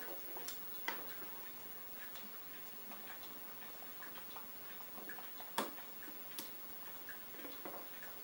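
Faint, irregular small clicks and ticks of a clamp being worked to press a metal bushing into an oak panel, with a sharper click about a second in and another a little past halfway.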